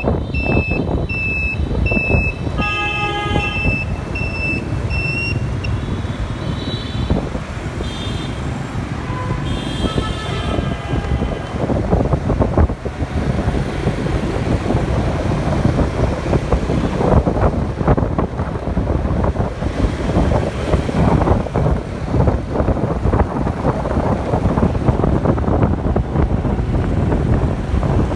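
Dense urban traffic made up mostly of motorbikes: engines running and passing close by, with several horn toots in the first ten seconds or so. A high electronic beep repeats a little under twice a second for the first five seconds.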